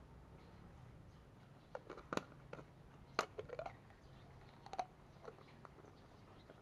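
A scatter of short, light clicks and knocks, bunched between about two and five seconds in, over a faint low hum.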